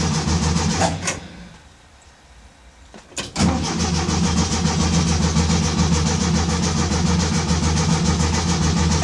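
A 1967 VW bus's air-cooled flat-four being cranked by the starter on a cold start after a year of sitting, without catching. It cranks briefly, stops for about two seconds, then after a click cranks again steadily for the rest of the time.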